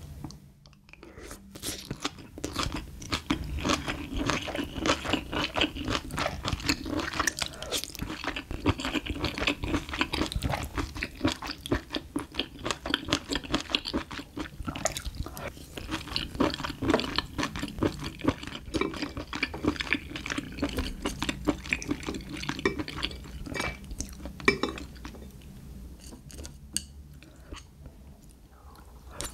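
Close-miked chewing of a big mouthful of rice with spicy stir-fried small octopus (nakji bokkeum) and seasoned bean sprouts: steady wet chewing with many quick crunchy clicks, thinning out near the end.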